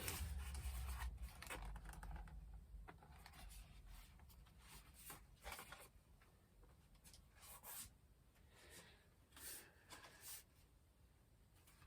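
Faint handling noises: soft rubbing and rustling with a low rumble in the first few seconds, then a scattering of brief, quiet scrapes and rustles as a foam model jet and its packaging are handled.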